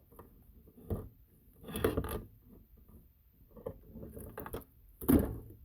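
Metal parts of a dismantled two-speed Borg Warner transfer case being handled and shifted: scattered clunks and clinks, with a small rattle about two seconds in and the loudest knock about five seconds in.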